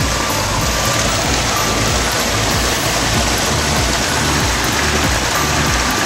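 Mountain stream water cascading over a small rocky drop between boulders, a steady rushing splash.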